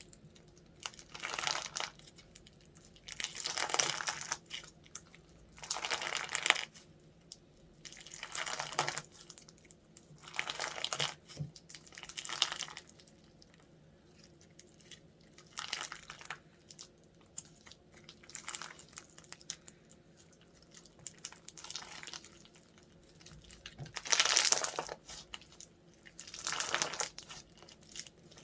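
Slime being squeezed and pressed by hand, a burst of dense small pops and crackles every two to three seconds with short quiet gaps between.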